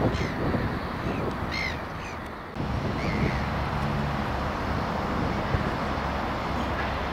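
A crow cawing several times in the first half, over wind and the low steady rumble of a distant diesel locomotive engine.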